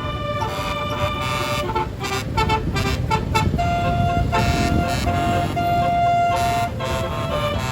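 Bus telolet horn, a 48-note multi-tone horn playing a tune: a run of quick short notes, then several longer held notes, over the low rumble of the bus engine.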